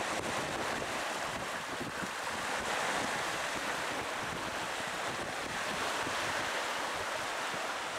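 Small sea waves washing and breaking in shallow water at the shore, a steady surf hiss, with wind rumbling on the microphone.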